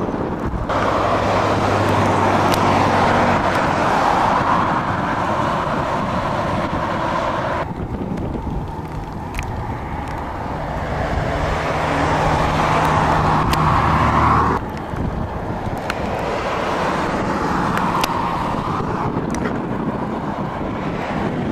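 Road-vehicle noise: a steady rushing with a low engine hum underneath, swelling and easing, broken by abrupt cuts about a second in, about 8 seconds in and about 14 seconds in.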